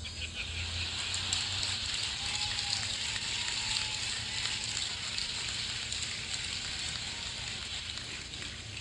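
Large audience applauding and laughing in response to a joke: a dense, steady clatter of clapping that builds quickly at the start and eases slightly near the end.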